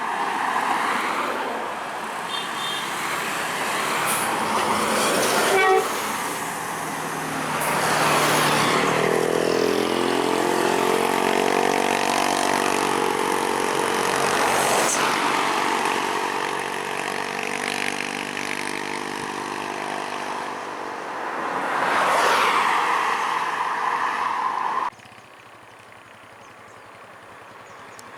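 Bus telolet horn, a multi-tone musical air horn, sounding a string of changing notes for about twelve seconds over passing heavy-vehicle engine and tyre noise. The overall sound drops suddenly a few seconds before the end.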